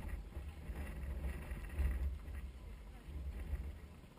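Wind buffeting an exposed camera microphone: an uneven low rumble that swells and drops with the gusts.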